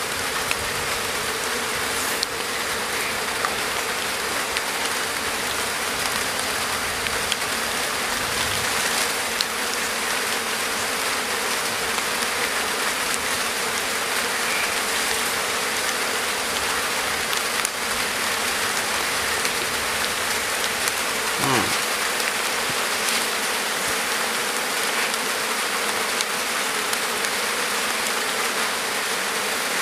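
A colony of honeybees buzzing steadily around their exposed honeycomb.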